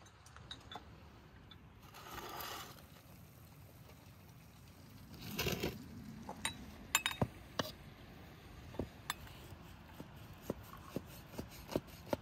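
Light clinks and knocks of glass tea glasses, saucers and a metal baking pan being handled and set down on a table, scattered irregularly through the second half. Two brief rustling swishes come before them.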